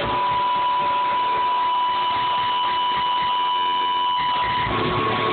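Live rock band's closing wash of amplified noise, with a single steady high guitar feedback tone held for over four seconds that steps slightly higher near the end.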